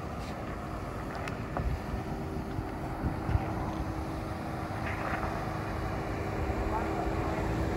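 2021 Ford Bronco's engine running at low revs as it crawls up over rock, a steady low hum that grows slowly louder as the truck comes closer.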